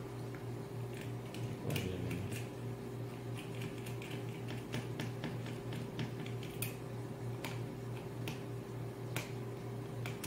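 Small scattered clicks and ticks of a screwdriver and wire being worked into the terminals of a selector switch, with a louder knock about two seconds in, over a steady low hum.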